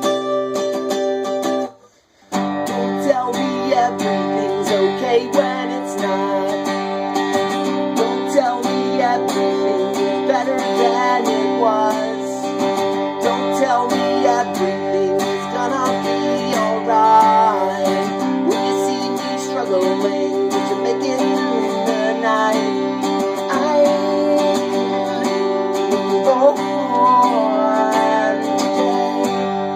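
Instrumental music led by a strummed acoustic guitar, with a brief break about two seconds in.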